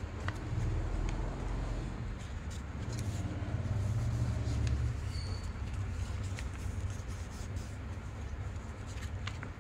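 Paper being folded and creased by hand, with faint scattered crinkles and ticks over a steady low rumble that swells twice.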